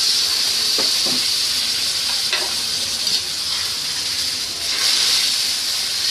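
Water poured into a kadhai of hot oil and fried spice masala with gatte, sizzling and hissing steadily as it boils up, with a few faint clicks of the slotted steel spoon stirring.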